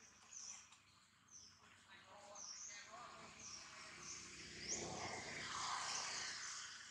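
Small birds chirping in short high notes every half second or so, over outdoor ambience, with a louder noisy swell from about four seconds in.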